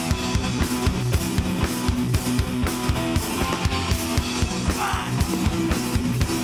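Hardcore punk band playing live: distorted electric guitars and bass over a fast, pounding drum kit.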